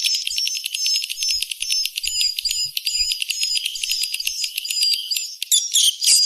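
Swiftlet call-lure recording: rapid chattering clicks run under short, repeated high twittering chirps. All of it is high-pitched, with the low end cut away. A louder flurry comes near the end.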